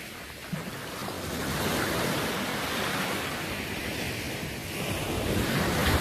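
Small waves breaking and washing up over a sandy beach, a steady wash of surf that swells twice.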